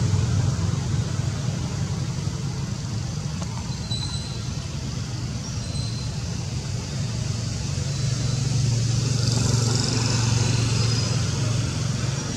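Steady low rumble of road traffic, swelling a little about eight seconds in, with a few faint high-pitched chirps over it.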